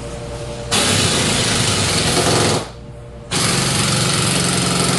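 Pneumatic impact wrench hammering in two bursts of about two seconds each, with a short pause between, tightening the piston onto the rod of a hydraulic cylinder.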